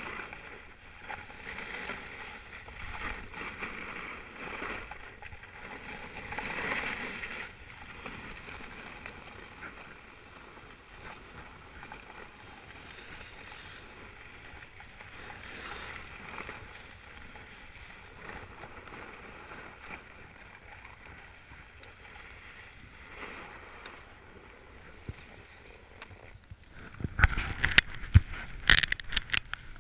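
Steady hiss and scrape of a rider sliding down a packed-snow ski slope, with wind buffeting the camera's microphone and the noise swelling and easing as speed changes. Near the end, a burst of sharp knocks and clatter as the camera and gear are bumped and handled at a stop.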